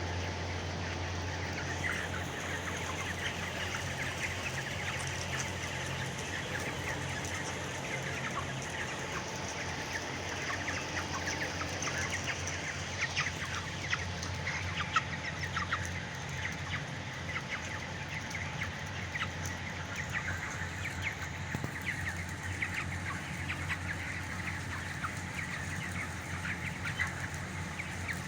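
A flock of broiler chicks and chickens calling together: many short, high peeps and chirps overlapping, with a few clucks, over a steady low hum.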